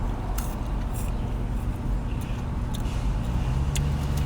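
Low steady hum of a car engine idling, heard from inside the cabin, with a few light clicks and taps.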